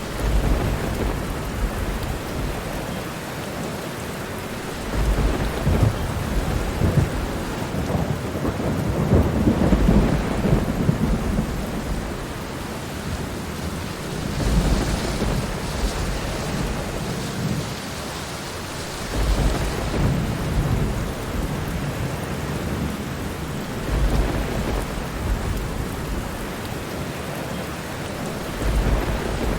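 Steady rain falling, with low rolls of thunder rising and fading every few seconds, the longest about a third of the way through.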